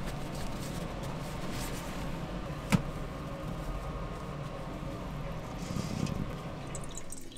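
Steady low mechanical hum with a single sharp knock a little before the middle.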